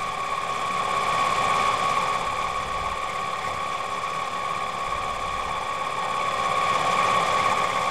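Mini lathe running at a steady speed with a constant high motor whine, while a cue tip shaper's cutter is worked slowly around the spinning cue tip.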